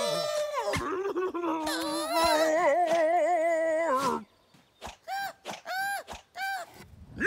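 A cartoon moose's deliberately terrible singing voice holds one long, wobbling note that cuts off about four seconds in. After a short pause come a few brief rising-and-falling vocal notes with gaps between them.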